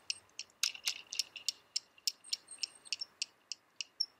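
Bicycle freewheel hub ticking while the bike coasts, a rapid even train of clicks about five a second that spaces out near the end as the bike slows.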